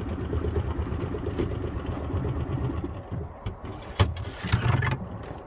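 Mercury 2.5 hp outboard running at low speed, then shut off and dying away about three seconds in. A sharp knock about four seconds in, then a few lighter knocks.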